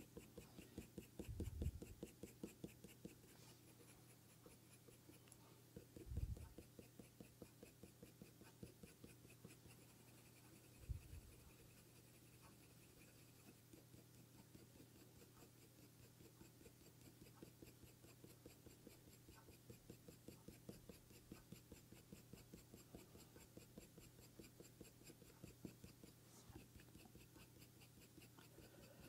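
Faint scratching of a colour pencil on hot press paper, quick short strokes repeating evenly. Three soft low bumps stand out in the first eleven seconds.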